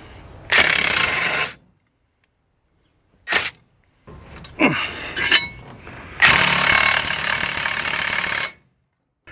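Cordless impact wrench hammering under load on a Torx bit socket, in two runs: a short burst of about a second near the start and a longer one of about two seconds in the second half. Between them are a short click and some lighter metallic rattles.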